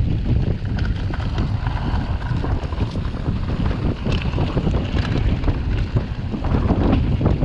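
Wind rushing over the microphone of a camera riding on an enduro mountain bike as it descends a dirt trail, with tyre noise and frequent short knocks and rattles.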